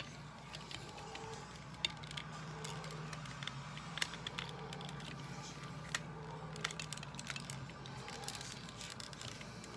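Plastic clicks and small knocks from hard plastic Transformers toy parts being handled and fitted together, scattered every second or so, over a low steady hum.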